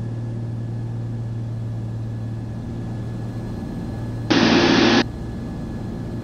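Twin piston engines of a Cessna 340 droning steadily at reduced power, about 21 inches of manifold pressure, heard inside the cabin. About four seconds in, a loud burst of sound cuts in and stops sharply after under a second.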